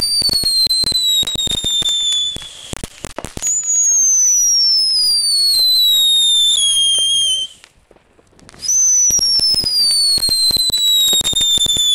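Small ground fireworks whistling and crackling. Three long whistles go off in turn, each falling in pitch over about four seconds, over constant crackling, with a brief lull about eight seconds in.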